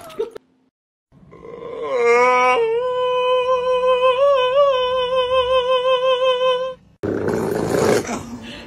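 A grey cat giving one long yowling meow that rises in pitch at the start and then holds steady for several seconds, wavering a little in the middle. Near the end comes a rough, noisy stretch.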